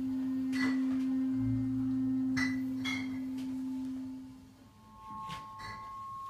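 Improvised experimental music: a steady low pure tone held for about four and a half seconds, then cutting out. Over it come a few short, lightly ringing taps, and near the end a quieter, higher steady tone comes in.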